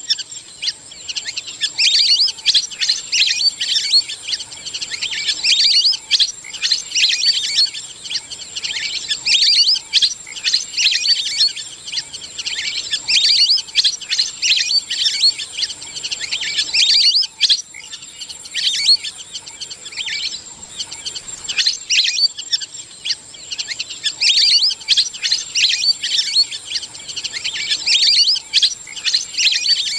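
A flock of lesser whistling ducks calling: a dense chorus of shrill whistled chirps that comes in waves every few seconds with short lulls between. These are the flock's gathering calls.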